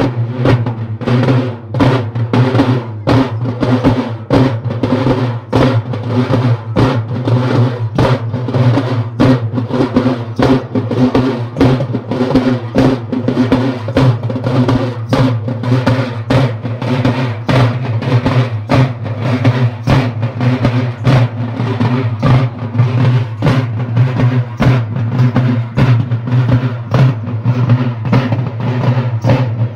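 Folk drum ensemble beating a steady, fast rhythm of several strokes a second, over a steady low droning tone.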